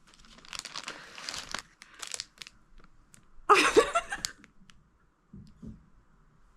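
Rustling and crinkling handling noises with a few sharp clicks, and a louder burst of rustling about three and a half seconds in.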